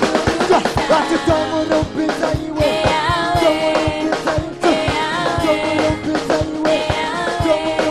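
Gospel praise song sung live by a group of singers, with voices bending in pitch over a band with a steady drum beat.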